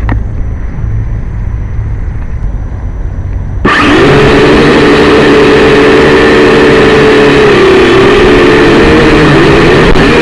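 Syma X5C quadcopter's four small motors and propellers start suddenly a few seconds in and run at a loud, steady buzzing whine, the pitch dipping briefly twice near the end. Before they start there is only a low rumble.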